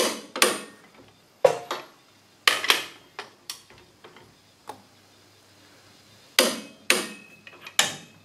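Tekton half-inch-drive click-type torque wrench, set to 130 foot-pounds, clicking on leaf-spring U-bolt nuts that are at or near torque: a dozen or so sharp metallic clicks with a brief ring, often two close together, spaced a second or so apart.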